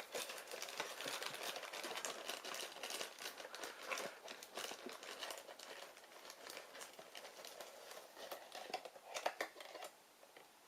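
Crinkling of a toy blind bag's packaging being handled and opened: dense, irregular crackles that die away just before the end.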